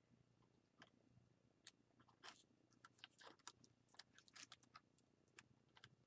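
Faint, irregular small clicks and rustles of hands handling and knotting a twisted cord around a metal ring.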